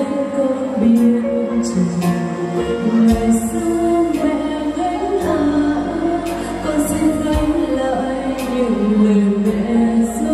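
A woman singing a slow Vietnamese ballad into a microphone over instrumental accompaniment, with a held low bass coming in about three seconds in and light percussion ticks.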